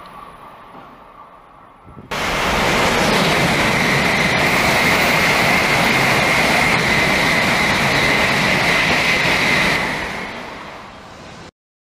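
High-speed train running at speed: a loud rush of air and rail noise with a steady high whine in it. It cuts in abruptly about two seconds in, fades away near the end and then stops dead.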